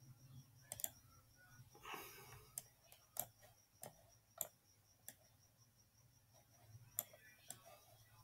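Faint computer mouse clicks, about eight sharp single clicks spaced irregularly over a low steady hum, with a brief rustle about two seconds in.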